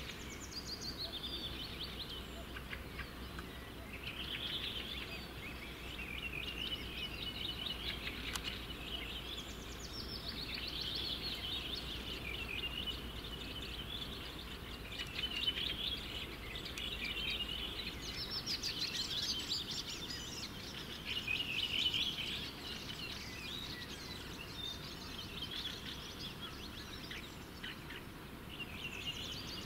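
Songbirds singing in a spring chorus: a continuous run of twittering, chattering phrases, a little louder about halfway through. Underneath is the steady rush of a river in flood.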